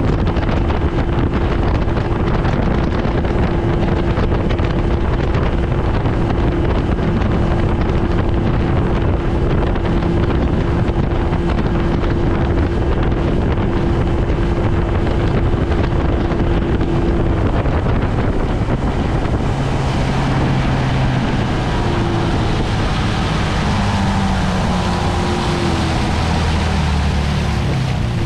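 1971 Evinrude Sportster 25 hp two-stroke outboard running under way at speed, pushing a small aluminum boat, with wind on the microphone. About two-thirds through, its steady note drops away and a lower, wavering note takes over.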